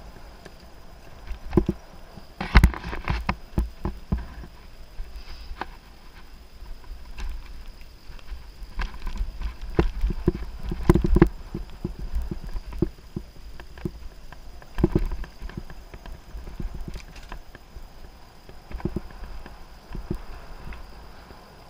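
Giant Anthem Advanced 1 full-suspension mountain bike rattling and knocking unevenly as it rides over the bumps of a dirt singletrack, over a steady low rumble. The clatter comes in heavier clusters about two and a half seconds in, around ten to eleven seconds in, and about fifteen seconds in.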